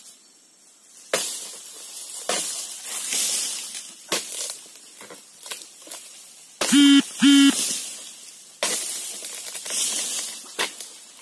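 Dodos (chisel blade on a long pole) chopping into the frond bases of an oil palm, several sharp strokes with dry rustling and swishing of the big palm fronds as they shake and fall. About two-thirds through, two short steady-pitched beeps like a horn sound one after the other.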